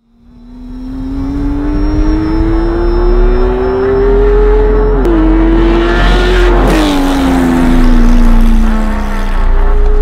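Porsche 991.1 GT3's 3.8-litre flat-six through a titanium cat-back exhaust, pulling hard with the engine note climbing steadily. The pitch dips at a quick upshift about five seconds in, then falls away as the car eases off, and climbs again near the end.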